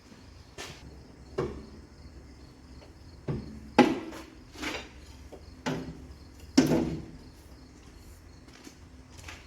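Irregularly spaced metal clanks and knocks, about seven of them, the loudest about four and six and a half seconds in, from work on a forage harvester. A faint, steady chirring of insects runs behind them.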